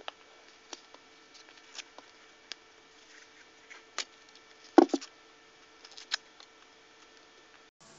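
Paper wrapping being picked and peeled by hand off a Roman candle's cardboard tube: scattered small ticks and crinkles, with one louder rip just under five seconds in.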